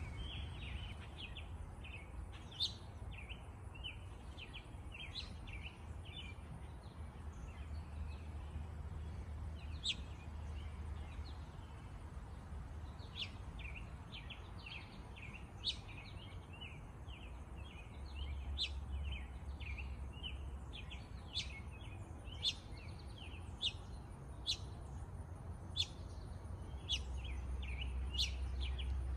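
Small songbirds chirping and twittering over and over, with frequent sharp high chirps standing out, above a low steady outdoor rumble that swells a few times.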